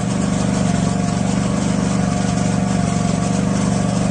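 Gas pressure washer engine running steadily under load while spraying through a Kärcher Dirt Blaster rotary nozzle, with an even hiss of the water jet over the engine hum.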